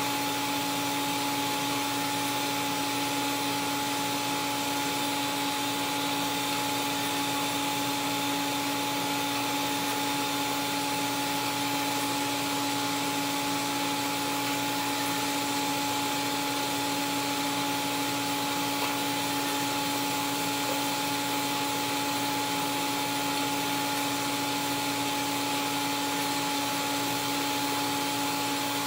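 Steady hiss of a TIG welding arc laying a root pass on carbon steel pipe with laywire filler, with two steady humming tones underneath.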